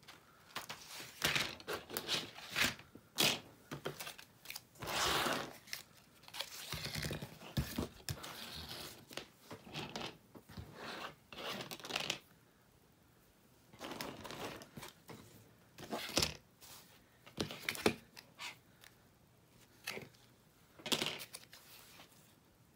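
Craft materials being handled on a cutting mat: a cardboard package of 18-gauge floral wire, loose wire stems and a spool of ribbon. They make irregular bursts of rustling and scraping, with a short pause about twelve seconds in.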